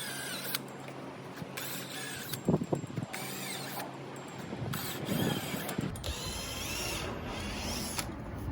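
Drill opening up the wing bolt holes in a C7 Corvette's rear decklid to about 7/16 inch, run in several short bursts. The bit gives a high, wavering squeal as it cuts, with a few sharp knocks partway through.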